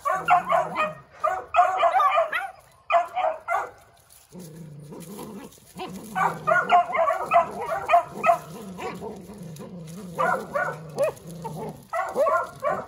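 Beagle puppies yipping and barking in rapid, high-pitched bursts while they play tug-of-war over a cloth toy. The yips come in clusters with short pauses. From about a third of the way in, a lower, steady growling runs underneath until near the end.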